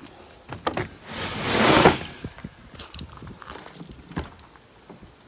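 Roller shutter on a fire engine's equipment locker being pulled down and shut: a rattling rush that builds to its loudest a little before two seconds in, with a few clicks and knocks from the shutter.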